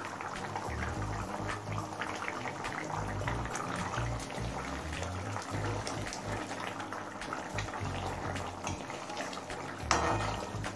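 Curry gravy bubbling in a metal kadai while a metal spatula stirs through it, over soft background music. A louder scrape of the spatula against the pan comes near the end.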